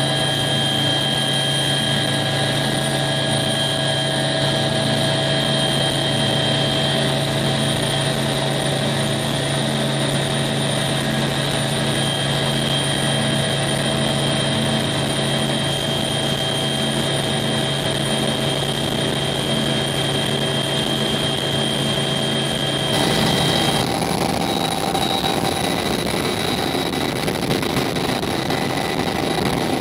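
Cabin noise of a CH-146 Griffon twin-turboshaft helicopter in flight: the steady drone of the rotor and engines with a constant high turbine whine. About 23 seconds in the sound changes abruptly, losing its low hum and turning rougher.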